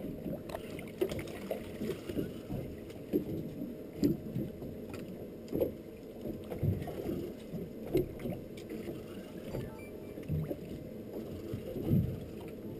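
Small boat ambience: water lapping against the hull, with irregular low knocks and bumps.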